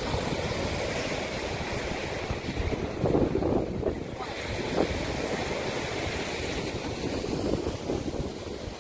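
Ocean surf washing up on a beach, with wind buffeting the microphone; the wash swells louder about three seconds in.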